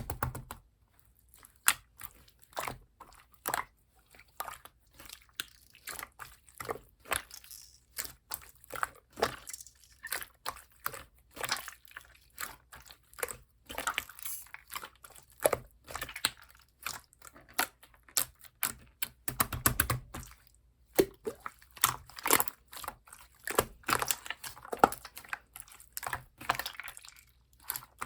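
Hand-played slime being squeezed, pressed and poked, giving a fast, irregular string of small clicks and pops with brief pauses.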